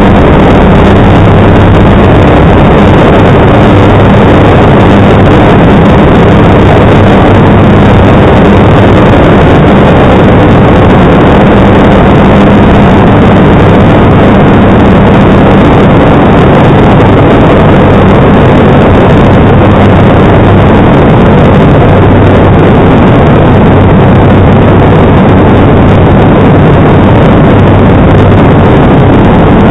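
Seaplane's propeller engine running steadily at take-off power, heard from inside the cabin: a loud, even drone with a low hum.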